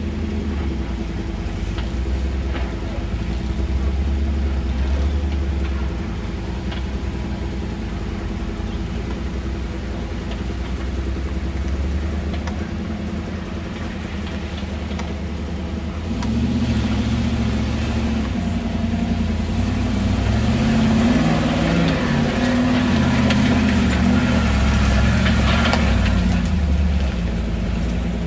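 Off-road 4x4 engine running steadily, then revved harder from about sixteen seconds in, its pitch rising and falling as it works through deep mud.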